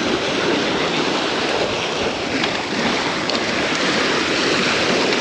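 Choppy sea waves washing and splashing against the granite boulders of a jetty, a steady rushing noise.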